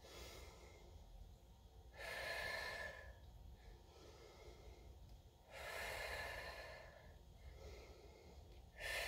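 A woman breathing slowly and deeply, in a deliberate breathing exercise: a long breath about two seconds in, another lasting over a second around five and a half seconds in, and a third starting near the end, with quiet between.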